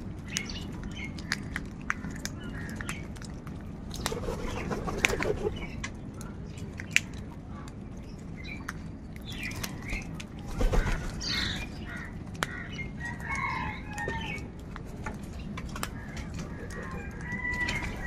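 A flock of house crows feeding, calling now and then: a few caws about four to five seconds in, then a louder burst with a low thump around ten to eleven seconds in, and more calls a little after. Under the calls run many sharp clicks of beaks pecking and feet on the concrete.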